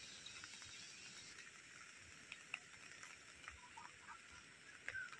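Near silence: a faint steady hiss of light rain, with a few short, faint bird calls in the second half.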